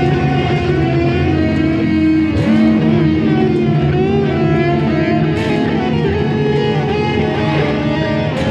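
Experimental music: dense layered drones holding steady, with a few wavering, gliding tones over them.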